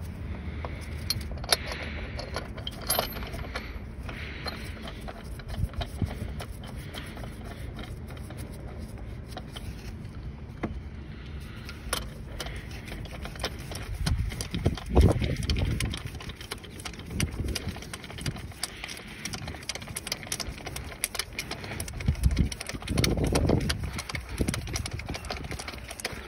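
Metal hand tools clinking and clicking against the crankshaft pulley and its centre bolt as a pulley holding tool and socket are fitted and worked. Twice, in the middle and near the end, a louder dull rumble comes from handling.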